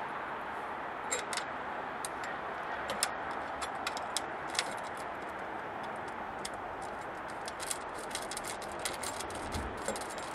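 Scattered, irregular light metal clicks and taps from bolts, nuts and brackets being handled and fitted by hand as a running board tube is attached to its mounting bracket, over a steady background hiss.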